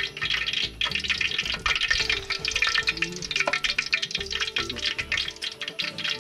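Medu vadas (urad dal batter) deep-frying in hot oil in a steel pot, a dense steady sizzle and crackle as fresh batter is dropped in.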